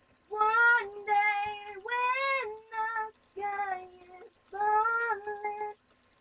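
A child singing a simple tune in high, held notes, several short phrases with brief breaths between them.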